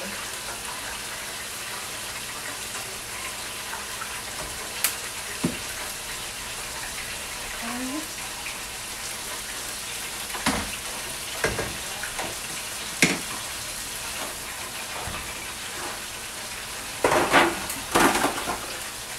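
Steady sizzle of food frying in oil, with a few sharp clinks of cookware and a louder burst of metal clatter near the end.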